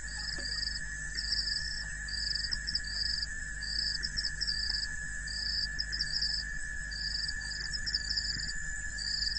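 Insect chorus: a steady high-pitched drone, with a higher trill that pulses on and off in short bouts about once or twice a second.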